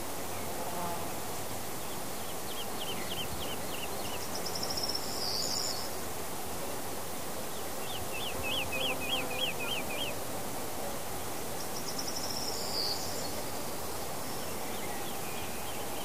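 Summer forest ambience: a steady buzzing of insects, over which a bird sings short runs of quick repeated notes three times, with higher twittering calls twice in between.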